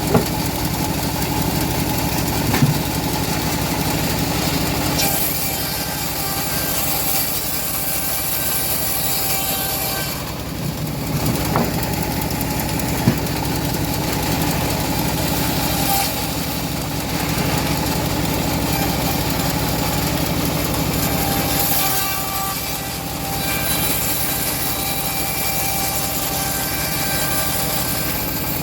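Engine-driven homemade bandsaw mill running steadily while sawing a teak log. The level dips briefly twice, and a few short sharp knocks stand out.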